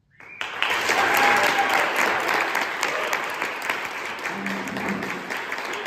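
Audience applauding: after near silence the clapping breaks out suddenly about half a second in and keeps going at full strength.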